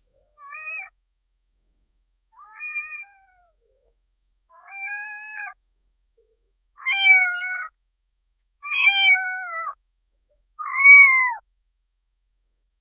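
Domestic cat meowing six times, each meow under a second with a pause between, the last three louder than the first three; several meows drop in pitch at the end.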